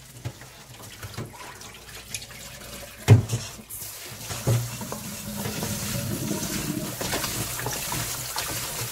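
Hands sloshing beef short rib pieces about in a steel bowl of soaking water, with a sharp knock about three seconds in. About four seconds in, a kitchen tap starts running in a steady stream onto the meat as it is rubbed and rinsed in the bowl.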